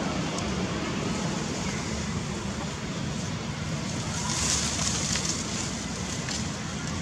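Steady rushing outdoor background noise with no distinct source, with a short rise in hiss about four and a half seconds in.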